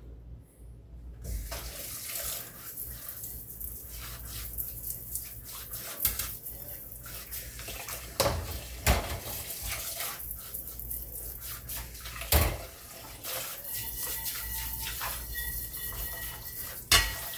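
Kitchen faucet turned on about a second in and running into the sink, with several sharp knocks of things hitting the sink.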